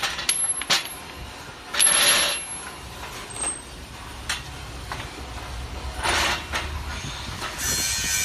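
Aluminium folding stage truss clanking as it is swung open and stood upright: sharp metal clinks, longer clattering rattles about two seconds in and again about six seconds in, and a steadier metallic rattle starting near the end.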